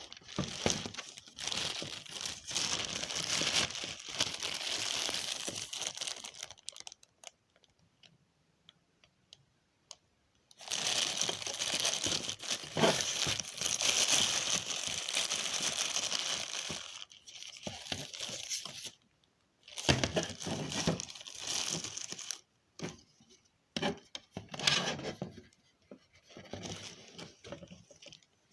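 Packaging being crinkled and torn in bursts: two long stretches, then shorter bursts near the end, with scattered handling clicks between them.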